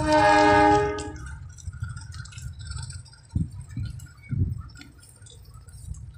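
A passing train gives a loud, ringing, many-toned note over a low rumble. The note lasts about a second and fades out. Two soft low knocks come a few seconds later.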